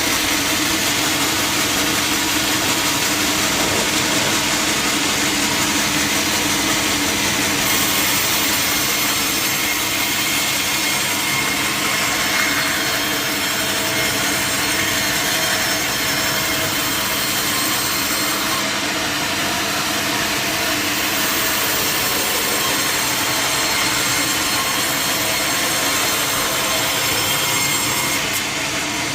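Sawmill saw cutting steadily through a large teak log, a continuous sawing noise with a steady machine hum under it, easing slightly near the end.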